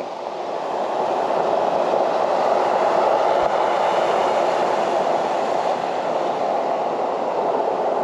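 Storm surf breaking on the shore: a steady rushing roar that swells a little over the first couple of seconds, then holds level.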